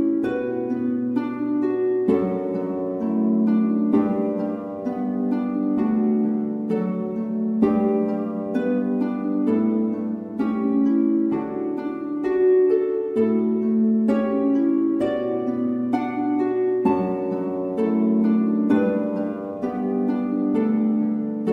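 Instrumental background music: a quick melody of plucked notes over held low notes that change every few seconds.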